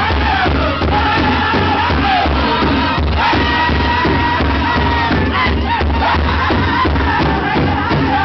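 Powwow drum group singing together in high, held voices over a steady, even beat struck on a large shared bass drum.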